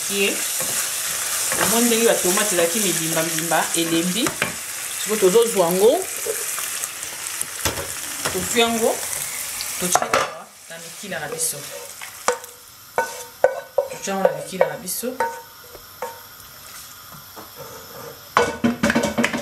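Tomato sauce sizzling in a hot pan while it is stirred with a wooden spoon. About ten seconds in the sizzling stops and is followed by a run of sharp knocks and scrapes as the sauce is scraped out of the pan into a pot and stirred in.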